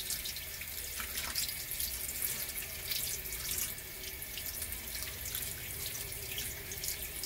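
Tap water running into a stainless steel kitchen sink, the stream splashing steadily over hands and sardines being gutted and rinsed under it.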